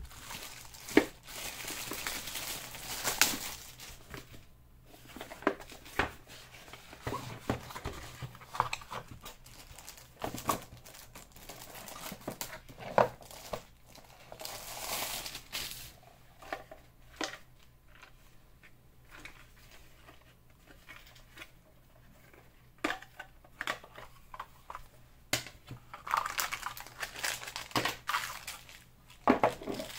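Clear plastic wrapping crinkling and rustling as a boxed key holder is unwrapped and handled, in several bouts. Sharp clicks and knocks between them from the cardboard box and the key holder's hard plastic case being opened and set down.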